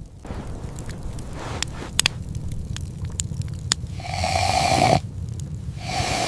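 Fire crackling with scattered sharp pops over a low steady rumble, with two hissing swells, one about four seconds in lasting a second and another starting near the end.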